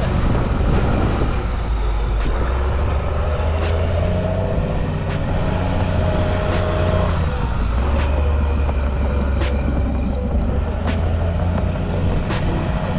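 Diesel engine of a custom off-road wrecker truck running under load as it drives on dirt, its note shifting as it works. A high whine climbs and falls away twice.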